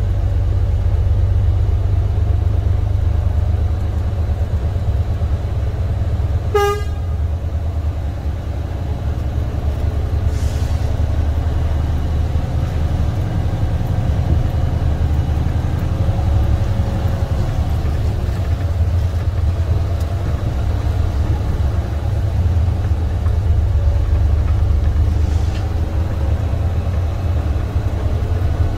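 Semi truck's diesel engine running with a steady low rumble as the truck drives, with one short horn toot about seven seconds in.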